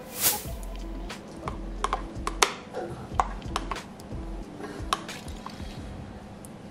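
A metal spoon stirring soup in a bowl, clinking and tapping against the bowl in scattered light clicks. A short whoosh comes right at the start.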